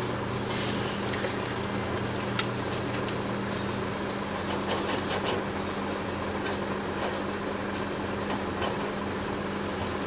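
Komatsu rigid dump truck's diesel engine running steadily while its hydraulic hoist raises the dump body to tip the load; the engine note changes about four seconds in.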